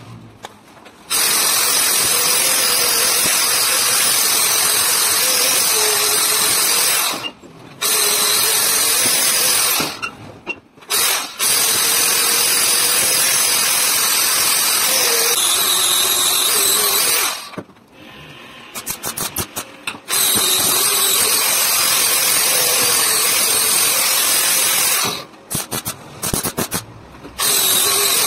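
Angle grinder with an abrasive disc grinding the rusty steel head of a hammer held in a vise. It runs in several long stretches with brief breaks between, its motor whine wavering in pitch as the disc works the metal.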